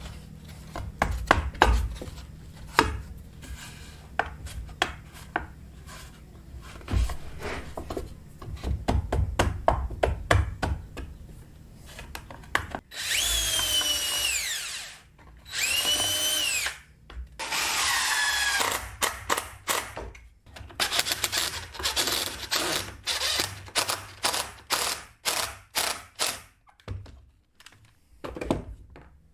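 Power drill run in three short bursts about halfway through, its motor whine climbing and then falling each time. Knocks and clatter of wooden pieces being handled come before and after.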